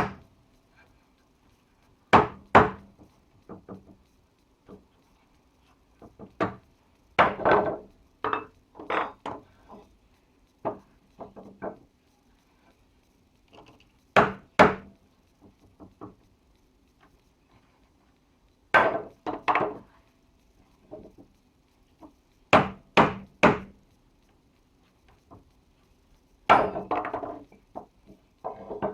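Forged holdfasts being knocked into and out of workbench holes, with sharp wood-and-metal knocks in irregular pairs and clusters and some brief rattles between pauses.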